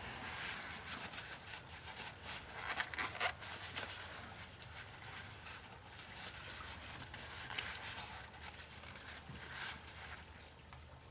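A paper towel rustling and rubbing as the grimy old PCV valve and its port are wiped clean, in short scratchy strokes with a few light ticks of handling.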